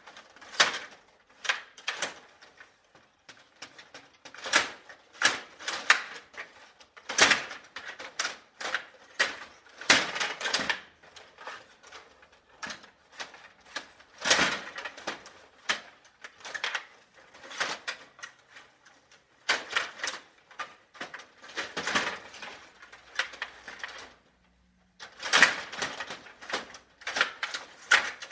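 Stiga Play Off table hockey game in play: metal player rods rattling and sliding in their guides, and plastic players clacking against the puck and the boards in quick irregular bursts. There is a lull of about a second near the end.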